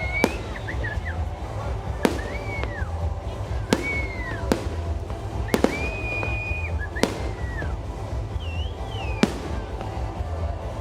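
Fireworks display: about seven sharp bangs a second or two apart, with short whistling tones that hold their pitch and then drop between them.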